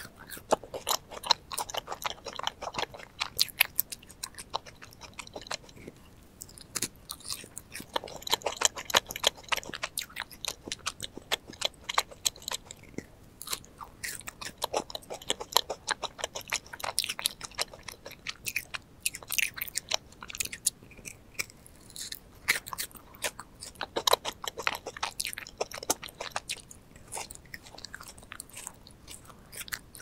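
Close-miked biting and chewing of thick cream-filled macarons with a chocolate-chunk topping: crisp crunches of the shell and chewing in runs of quick crackles with short pauses, played at double speed.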